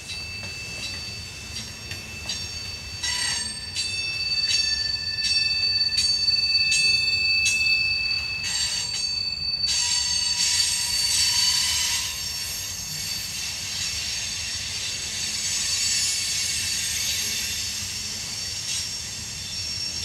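Freight cars (covered hoppers and tank cars) rolling past on curved track, their wheels squealing in high sustained tones, with a steady run of regular clicks from the wheels crossing the rail. About halfway through, the pure squeal tones give way to a broader, hissing high-pitched screech.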